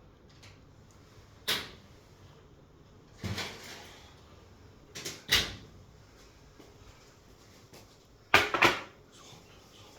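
A series of sharp knocks and clatters: single ones at about one and a half and three seconds in, a pair about five seconds in, and the loudest pair near the end, with quiet between.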